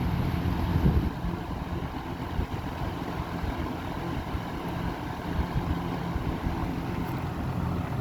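1960s Lasko model 4735 box fan running on low speed: a steady rush of moving air over a low motor hum.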